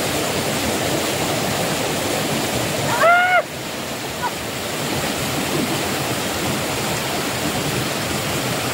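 Steady rush of flowing river water. About three seconds in, a single short voice-like call rises and falls in pitch over it.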